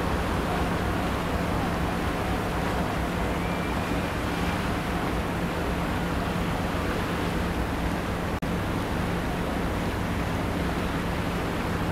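Steady rush of wind and sea wash heard from the deck of a moving ferry, with a low, steady hum from the ship underneath. The sound cuts out for an instant about eight seconds in.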